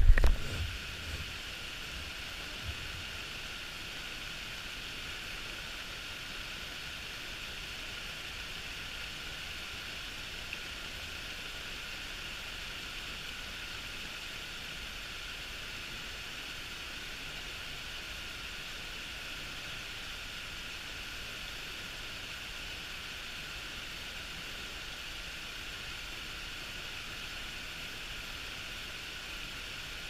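Mountain stream water rushing steadily over rocks, an even, unbroken hiss. A few low thumps in the first second.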